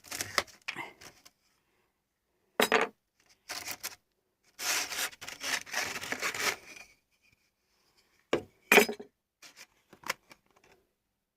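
Workshop handling of a wooden hand-held sanding belt holder: a few short knocks, then a scratchy rub of about two seconds midway, like abrasive belt drawn across a surface, and a couple of sharp clicks or clinks near the end.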